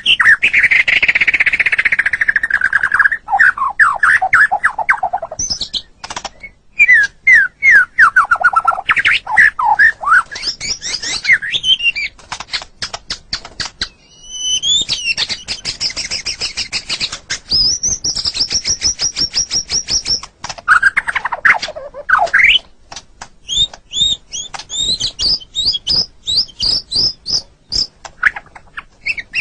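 White-rumped shama (murai batu) singing a varied, loud song: rapid runs of falling notes, high whistled phrases and fast trills, with short pauses between the phrases.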